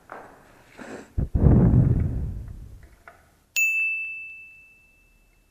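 A metal wrench strikes metal and rings with a single clear, high ding about three and a half seconds in, fading out over a second and a half. Before it comes a duller, low clatter of the tool being handled.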